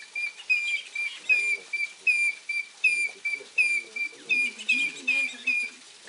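African grey hornbill calling: a long series of piping, whistled notes, two or three a second, some slurred, that stops shortly before the end.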